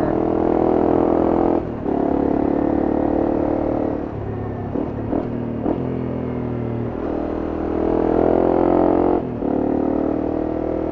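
Honda CRF250M's single-cylinder four-stroke engine running under way as the motorcycle is ridden, its pitch and loudness rising and falling, with brief drops in engine sound about two seconds in and again about nine seconds in.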